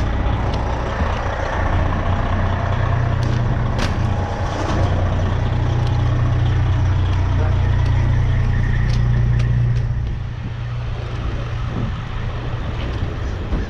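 A heavy truck's engine running close by: a low steady rumble that grows for several seconds and then drops away about ten seconds in.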